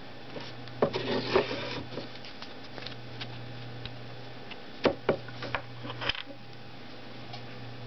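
Small plastic bottles of pH calibration solution and their caps handled and set down on a desk: a rustle of handling about a second in, then a few sharp clicks and knocks between five and six seconds in. A steady low hum runs underneath.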